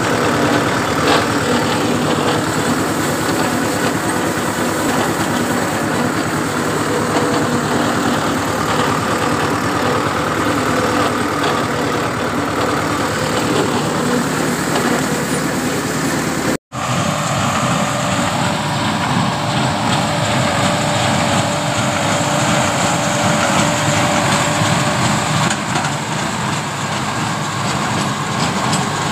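HMT 5911 tractor's three-cylinder diesel engine running steadily under load as it drives a square straw baler through its PTO. The sound drops out for an instant just over halfway, then comes back with the baler's mechanism clattering alongside the engine.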